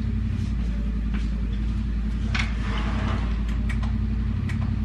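Stick vacuum cleaner running with a steady motor hum, a few faint clicks and a short rise in hiss about halfway through.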